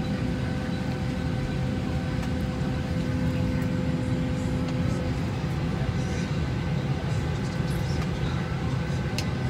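Steady low rumble inside an airliner cabin on the ground, the cabin air system running, with a faint steady hum that stops about five seconds in.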